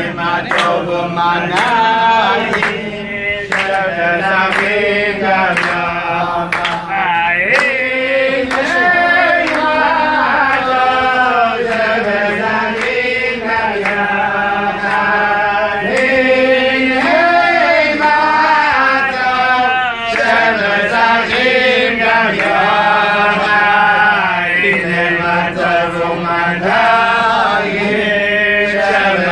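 Group singing of a chant-like Jewish melody, voices carrying an unbroken tune over a steady low accompanying tone.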